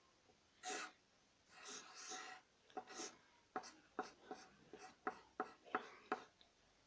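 Faint scratching of a drawing implement on paper: a few soft sweeps, then a quick run of short, sharp strokes a few times a second that stop near the end.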